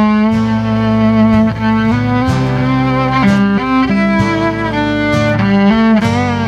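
Instrumental introduction to a slow song: a fiddle plays a sustained, slow melody over a steady bass line.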